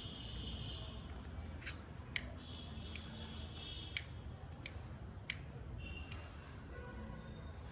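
A hand lighter clicked over and over, about seven sharp clicks spaced half a second to a second apart, as it is struck to light a small firecracker's fuse.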